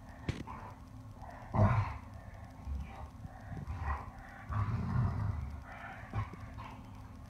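Two dogs play-wrestling gently: short, irregular bouts of low grunting vocal noise, the loudest about one and a half seconds in and again around five seconds, with soft scuffling and a few light clicks between.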